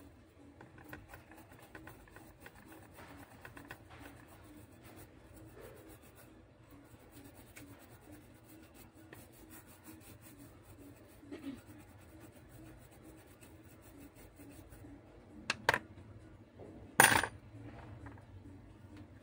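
Small hard parts and tools clicking and rubbing on a workbench while a replacement component is hunted for, with two sharp clicks about fifteen seconds in and then a brief, loud metallic clatter about seventeen seconds in.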